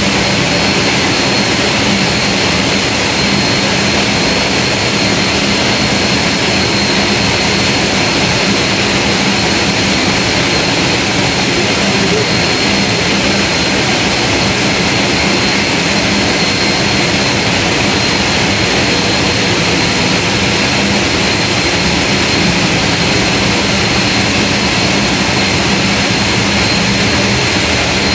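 Pratt & Whitney PT6A turboprop engine and its propeller running steadily on a ground test stand: a loud, even rush of noise with a steady high whine over a low hum.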